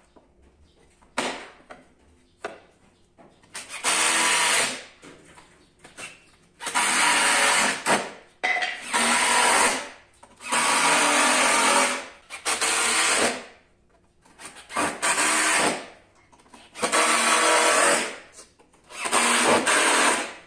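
Power drill running in about eight bursts of one to two seconds each, with short pauses between them. A few light knocks come before the first burst.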